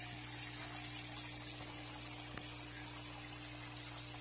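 Water pouring steadily from the outlet pipe of a small oxygenation pump into a fish tank, splashing and bubbling on the surface, with a steady low hum underneath. One small click a little past halfway.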